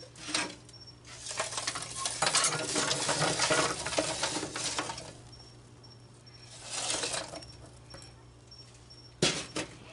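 Lit charcoal briquettes poured from a chimney starter, clattering and tumbling into a cast iron grill: a long run of clattering from about one to five seconds in, a shorter pour near seven seconds, and a few sharp knocks near the end.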